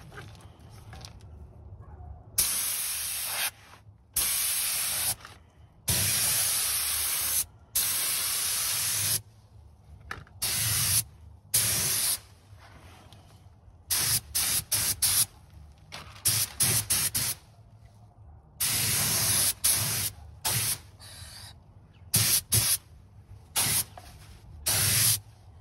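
Gravity-feed compressed-air paint spray gun laying clear coat, hissing in bursts each time the trigger is pulled: several passes of about a second each, then many short, quick bursts.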